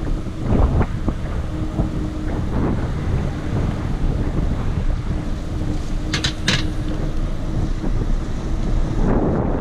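Wind buffeting the action camera's microphone while riding a bicycle, over a low rumble of tyres on pavement, with a faint steady hum underneath. About six seconds in come three quick high-pitched chirps.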